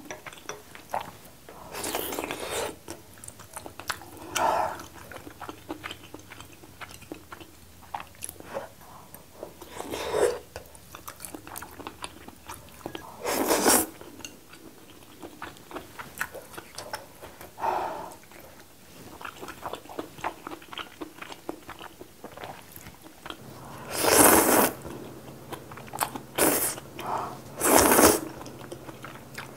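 A person eating spicy noodle soup close to the microphone: wet chewing and small mouth clicks throughout, broken by several louder slurps of noodles, the longest about three-quarters of the way through.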